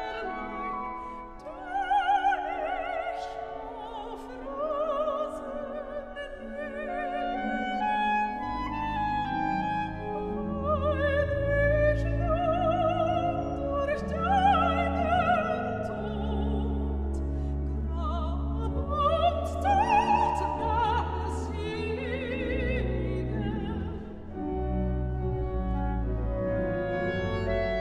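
Solo soprano singing with wide vibrato over a 1903 Adema pipe organ; deep sustained organ pedal notes enter about eight seconds in.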